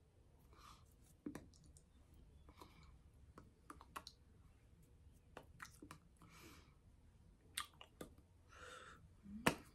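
Faint, scattered clicks and taps from a signer's hands meeting and touching, with a few short soft brushing sounds in between. The sharpest click comes near the end.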